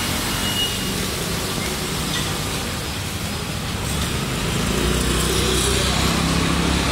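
Street traffic: a motor vehicle engine running close by over a steady hiss of road noise, its low hum getting louder from about four seconds in.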